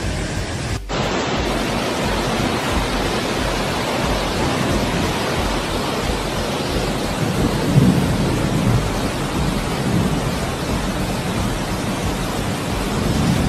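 Steady rushing roar of a muddy flash-flood torrent pouring down a street in torrential rain, with a brief drop-out about a second in and a deeper swell around eight seconds in.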